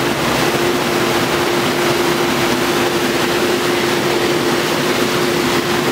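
Muddy floodwater rushing and cascading down a rubble-strewn gully, a loud steady rush of churning water. A steady hum on one pitch runs under it.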